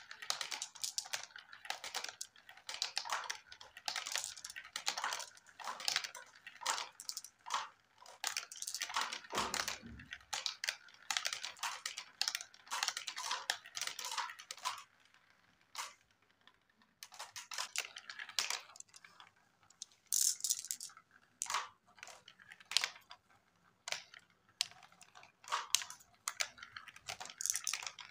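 Glass marbles rolling and clattering down a plastic marble-run track: a rapid, irregular string of small clicks and rattles as they tumble through the chutes and steps. A duller, lower knock comes about nine seconds in, and the clicking thins out in the second half.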